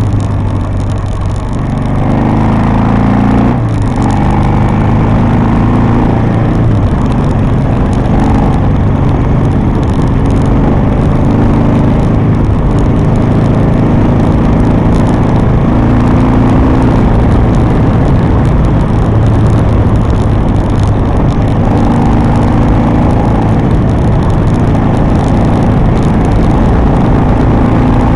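Harley-Davidson V-twin engine running under way, with wind rushing over the microphone. The engine note rises and falls every few seconds with throttle and gear changes.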